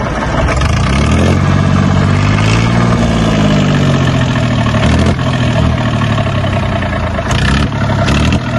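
Massey Ferguson 245 tractor's three-cylinder diesel engine running through a vertical New Holland tractor silencer. It revs up about a second in, eases back down a few seconds later, then runs steadily.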